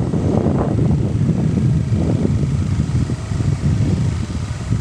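A moving vehicle heard as a dense, low, fluctuating noise, with wind buffeting the microphone.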